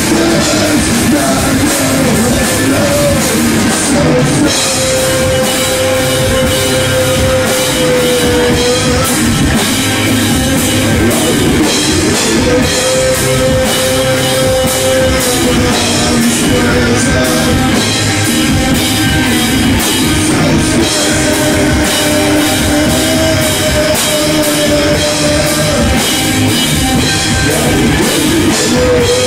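Stoner rock band playing live and loud: electric guitar and a drum kit, with a singer at the microphone.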